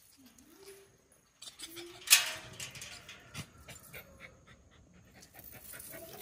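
Dogs making a few short, rising-and-falling whimpers, then a sudden loud sharp sound about two seconds in, followed by light scattered clicks and rustles.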